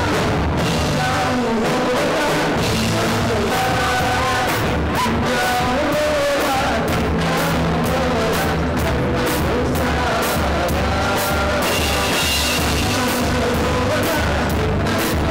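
Live band with drum kit, bass guitar and electric guitar playing a Nepali pop-rock song, with a sung vocal line over a steady drum beat.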